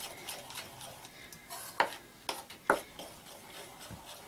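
Metal spoon stirring flour into a milk-and-egg mixture in a ceramic bowl: soft scraping with a few light clinks of the spoon against the bowl, clustered around two to three seconds in.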